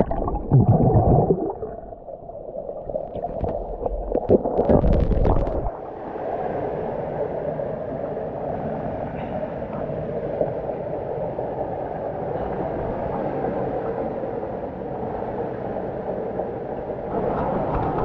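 Muffled water sounds from a camera dipped in a river pool: two loud stretches of underwater gurgling and swirling in the first six seconds, then the steady rush of a small waterfall pouring into the pool.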